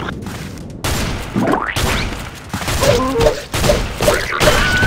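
Nerf battle gunfire sound effects: repeated bursts of sharp shots and thuds, with several quick rising whooshes between them.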